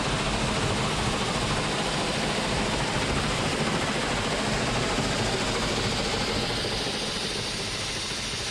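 Large farm machine's engine running steadily under a dense even noise, easing off slightly near the end.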